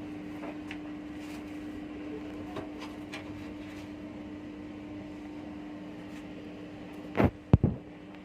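A steady electrical hum with a few light clicks, then two loud knocks in quick succession near the end.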